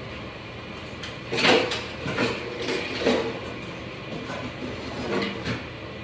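Kitchen clatter: a run of sharp clicks and knocks as dishes and containers are handled, over a steady background hum.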